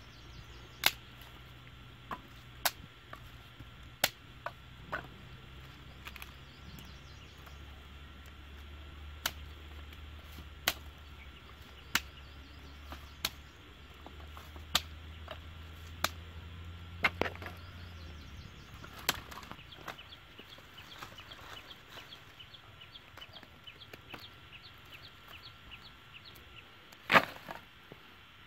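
Dry sticks snapping and clacking together as they are gathered by hand into a bundle: sharp single cracks every second or so, the loudest one near the end.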